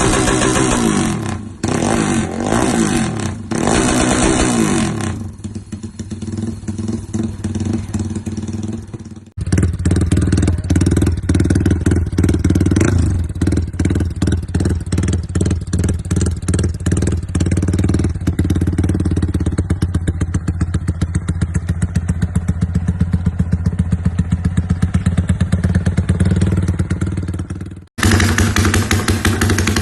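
Yamaha Y15ZR motorcycle engine with an aftermarket exhaust, revved up and down, then idling with a rapid even pulse. The sound changes abruptly several times as different bikes' clips are joined.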